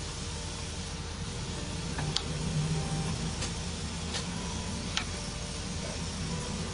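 Rotary selector switch on a DIY LED lamp clicking four times, each click a step to a new light colour, over a steady low background hum.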